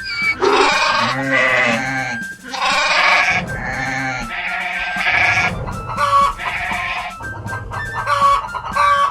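A string of animal calls, one after another, over background music.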